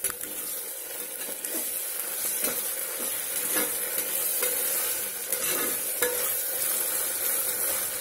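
Onions, green chillies and ginger-garlic paste sizzling in hot oil in a pressure cooker, stirred with a spoon that scrapes the pot in strokes about once a second.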